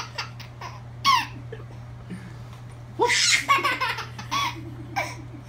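A baby girl laughing in short bursts: a quick laugh about a second in, then a longer run of laughter about three seconds in that trails off near the end. A steady low hum runs underneath.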